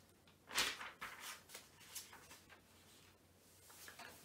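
Pages of a book being turned: a loud papery swish about half a second in, then several softer rustles.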